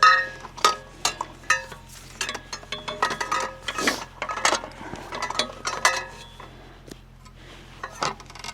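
Irregular metallic clinks and knocks, several ringing briefly, as the metal parts of an electric log splitter are handled and set up. They thin out in the last second or so.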